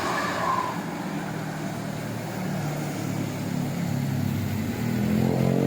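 Intercity bus engine running as the bus passes, its pitch climbing as it accelerates near the end. A held horn note fades out within the first second.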